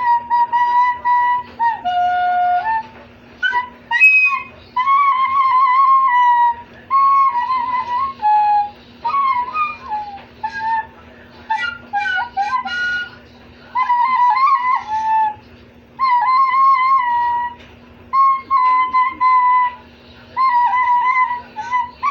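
Recorder played loudly in short phrases of held, slightly wavering notes, mostly around one pitch with a few lower and higher notes, and brief pauses between phrases.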